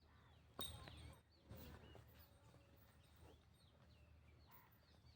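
Several small birds chirping faintly, short rising and falling calls overlapping one another, with two louder stretches of calling about half a second and a second and a half in.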